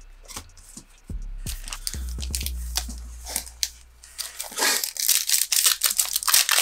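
Foil wrapper of a Pokémon card booster pack crinkling and tearing as it is handled and opened, denser from about halfway through, after a few quieter clicks of cards being handled.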